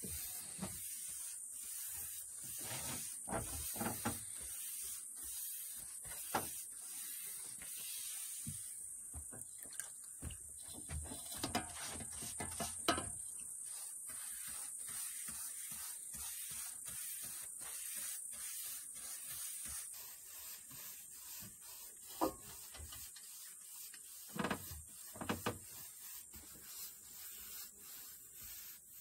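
Paintbrushes stroking a coat of finish onto a rough wooden slab tabletop: a long run of short, scratchy bristle-on-wood strokes, with a few louder knocks along the way.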